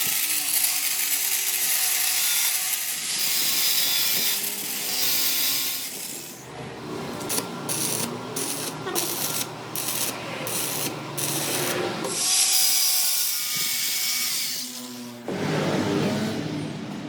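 Power tool working on a steel fan hub, giving a hissing, grinding noise. After about six seconds it starts and stops repeatedly in short bursts, then runs steadily again.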